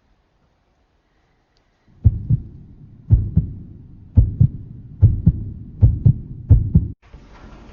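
Heartbeat sound effect from a drama soundtrack: six deep lub-dub double thumps, starting about two seconds in and quickening slightly, cut off abruptly near the end.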